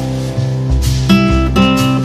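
Background music led by plucked and strummed guitar over a steady bass line.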